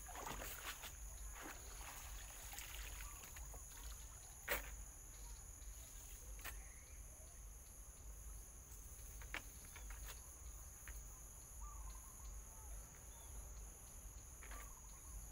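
Crickets trilling steadily in two high, unbroken tones, with a few sharp knocks and taps scattered through, the loudest about four and a half seconds in.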